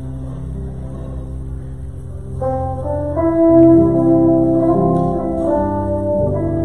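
A live band playing the opening of a slow song: a low bass note sounds from the start, and long held guitar notes come in about two and a half seconds in, growing louder.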